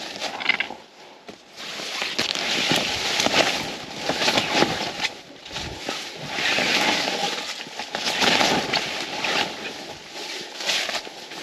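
Rustling and crunching of dry ground cover, with many small crackles, coming in uneven swells of a second or two.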